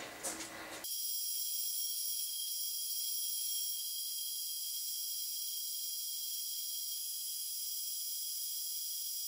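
A brief clink of small metal parts, then, from about a second in, a steady high-pitched hiss with several thin whining tones as a metal lathe turns and cuts an aluminium pin.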